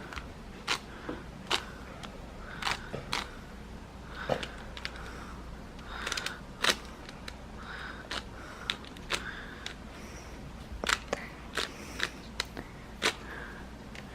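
Plastic 3x3 puzzle cube being twisted by hand as it is solved: irregular sharp clicks and clacks as layers snap into place, with softer scraping of turning layers between them.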